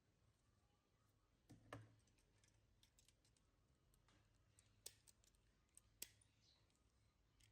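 Near silence: faint room tone with a few scattered, irregular light clicks and taps.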